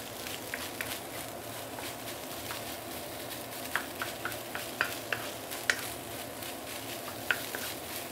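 Rice and scrambled egg sizzling in a non-stick pan over medium-high heat while a wooden spatula stirs and breaks up the rice clumps, with irregular sharp taps and scrapes of the spatula on the pan that come more often from about four seconds in.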